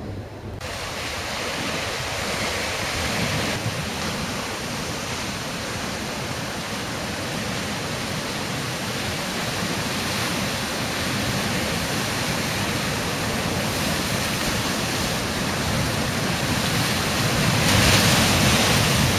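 Ocean surf: a steady wash of waves with a louder surge near the end.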